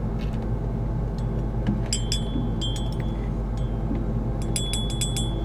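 A metal spoon clinking against a ceramic coffee mug as the coffee is stirred: a few ringing clinks about two seconds in and a quicker run of clinks near the end, over a steady low hum.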